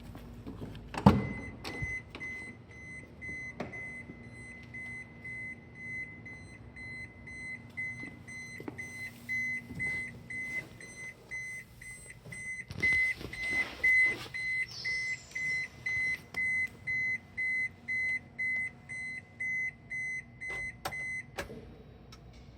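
Electronic warning beeper in a Daihatsu Hijet kei truck, one high tone beeping evenly a little under twice a second for about twenty seconds. It starts just after a loud click near the start and stops with a click near the end. There are rustling and knocks midway.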